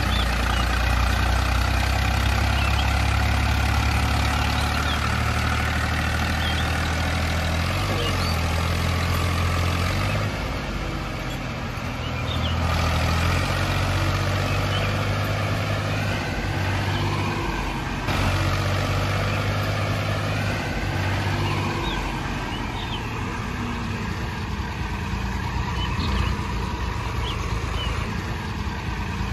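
Tractor engine running with a steady low drone that shifts in pitch several times.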